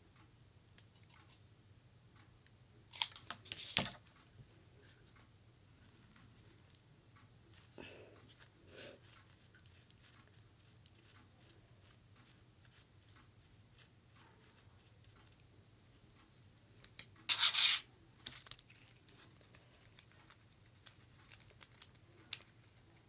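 Soft rustling and handling sounds of hands working preserved roses and tulle lace, with two louder scratchy rustles about three seconds in and about seventeen seconds in, and light ticking near the end.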